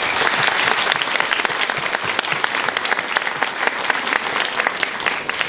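Audience applauding: a dense patter of many hands clapping at once, which begins to thin out near the end.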